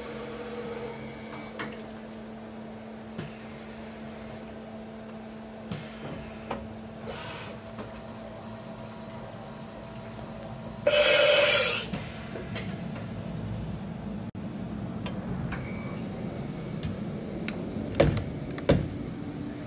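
Hartford HV35 CNC milling machine running with a steady hum during an automatic tool change on its turret. A loud hiss lasting about a second comes midway, and two sharp knocks come near the end.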